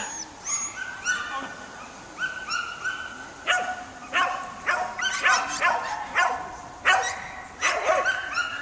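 Norwegian Buhund barking repeatedly, a run of short high-pitched barks and yaps, more frequent and louder in the second half. It is barking to drive sheep.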